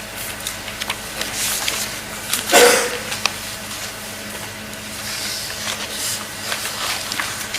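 Courtroom microphone pickup with a steady electrical hum and hiss, scattered small clicks and rustles, and one short breathy burst about two and a half seconds in.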